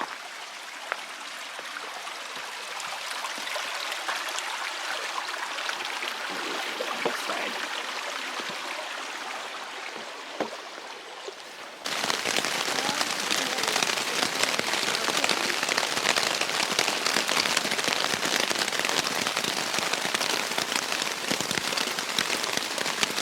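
Running creek water hissing steadily, with a few scattered drips. About halfway through it cuts abruptly to steady, heavier rain, a dense patter of drops.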